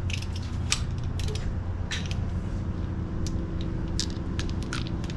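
Irregular light metallic clicks and clinks of hand tools and spark-plug parts being handled, over a steady low hum.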